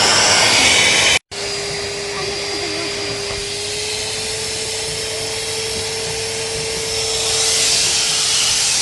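Vacuum cleaner running steadily with a hiss and a steady whine. The sound cuts out for a moment about a second in, then resumes.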